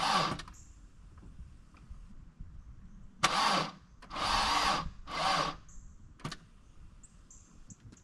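Saturn's starter motor whining in short bursts, the last ending about half a second in, then three quick ones a few seconds in, while barely turning the engine over. The engine is seized after running on laundry detergent instead of oil, which the owner takes for a spun bearing. A single sharp click follows about six seconds in.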